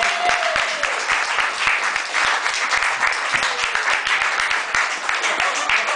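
Audience applauding: many hands clapping in a dense, steady patter, with a faint voice calling out near the start.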